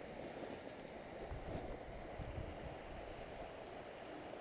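Steady rushing of a river, with wind buffeting the microphone in low rumbles.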